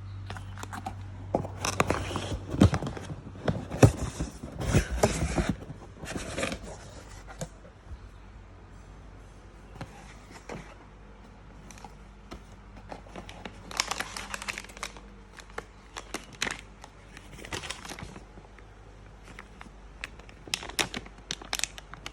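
Packaging being opened and handled by hand: a run of crinkling, tearing and scraping for the first several seconds, then scattered shorter rustles and clicks.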